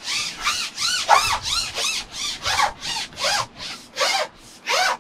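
A carbon match-fishing pole being pushed out hand over hand, giving a short rubbing squeak with each push, about three a second.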